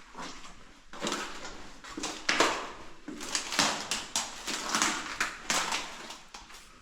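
Irregular footsteps crunching and scuffing over gritty, sandy ground in a mine tunnel, several steps a second with a few sharper scrapes.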